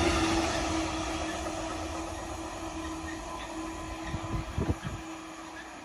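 High Output Ballast Cleaner wagons rolling past on the rails, the sound fading away as the tail of the train passes and draws off, with a steady low hum under it. A few dull thumps come about four to five seconds in.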